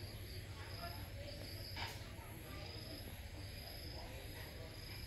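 Insects trilling in steady high-pitched tones, the lower trill pulsing on and off, over a low rumble; a brief rasping burst of noise about two seconds in.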